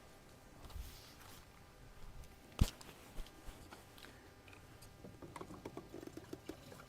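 Handling noises of a diesel can and a heater's fuel tank being readied for filling: one sharp knock about two and a half seconds in, then a run of small clicks and taps near the end.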